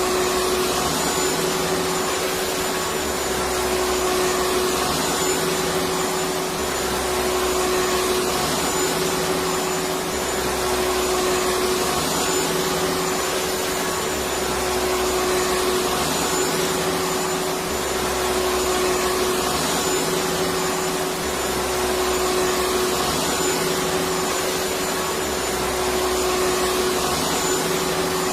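Vacuum cleaner running continuously: a steady whine from the motor over a rushing airflow hiss. Underneath, a low hum alternates between two pitches every three to four seconds.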